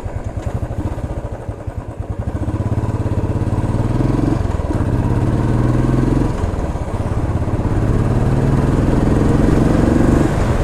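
Royal Enfield Classic 350 single-cylinder motorcycle engine being ridden, first thumping unevenly at low revs and then pulling away with rising revs. The revs drop briefly about six seconds in, then climb again.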